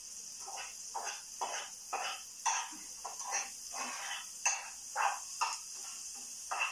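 Food sizzling steadily in a frying pan on a stovetop, with short irregular scrapes and knocks of a cooking utensil as the food is stirred and turned, about one or two a second.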